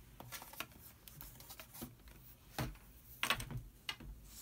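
Handling noise from laptops being shifted on a glass-topped desk: scattered light clicks and taps, with two sharper knocks about two and a half and three and a quarter seconds in.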